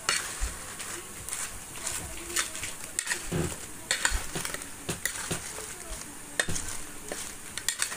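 A metal spoon tossing crisp fried potato bites on a plate to coat them in masala: irregular scraping and light clicking as the pieces shift against the plate.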